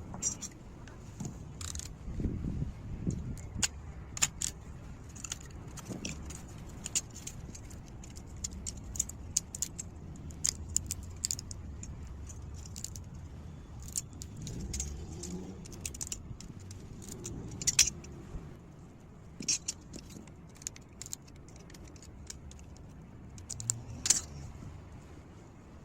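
Small metal pieces clinking and jangling as they are handled, in irregular sharp clicks with a few louder knocks, over a low rumble.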